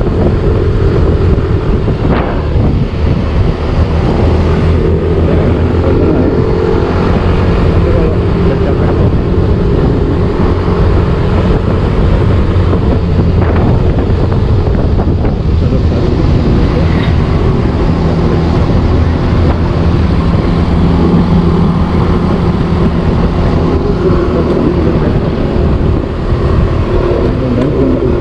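Motor scooter engine running steadily while riding at cruising speed, its note shifting slightly partway through, with wind rushing over the microphone.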